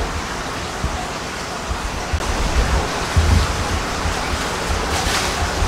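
Steady rushing hiss with irregular low rumbling thumps, and a clear plastic fish bag rustling briefly about five seconds in.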